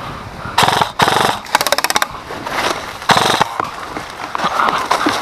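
Airsoft guns firing bursts: two short bursts about half a second in, then a rapid rattle of about a dozen shots in half a second, and another burst about three seconds in.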